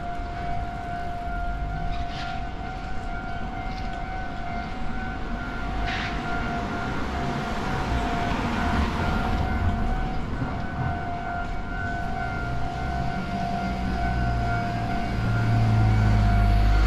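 Japanese level-crossing warning bell on a tram line, ringing on as a steady electronic two-tone alarm. Near the end a road vehicle's rumble grows louder beneath it.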